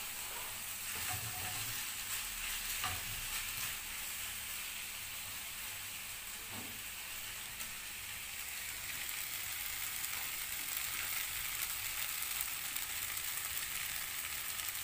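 Noodles with diced bell peppers sizzling in a stone-coated frying pan: a steady frying hiss, with a few faint knocks in the first seven seconds.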